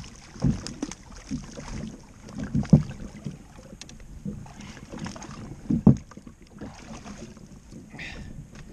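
Wind and sea hiss around a fishing kayak, with a few low thuds, the loudest near three seconds and near six seconds in.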